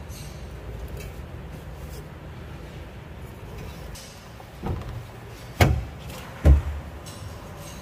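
Three sharp knocks in the second half, about a second apart, the last two loudest, over a steady low rumble.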